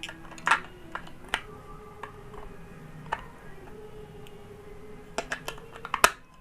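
Batteries being fitted into the plastic battery compartment of a motion-activated night light: scattered sharp plastic clicks and taps, then a quick run of clicks near the end.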